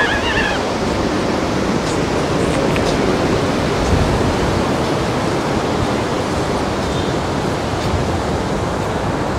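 Steady rushing wash of ocean surf breaking on the beach, with a brief high-pitched sound right at the start.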